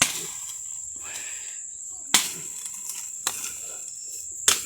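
Four sharp, unevenly spaced chopping strikes of a hand-held blade into wood, over a steady high insect trill.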